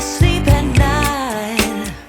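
Background pop music with a drum beat.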